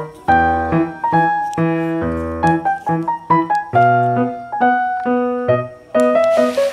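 Background music: a keyboard tune played as a string of piano-like notes in a steady rhythm.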